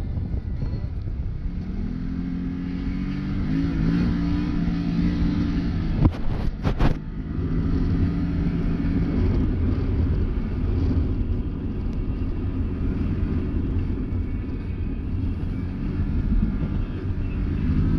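Can-Am Maverick Sport X mr side-by-side's engine running under way, its pitch rising and easing with the throttle over a steady low rumble. About six seconds in comes a quick series of sharp knocks.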